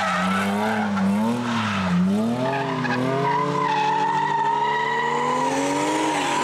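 Drift car engine at high revs with the throttle worked up and down for the first couple of seconds, then pulling in a long steady climb in pitch, with tyres squealing as the car slides sideways.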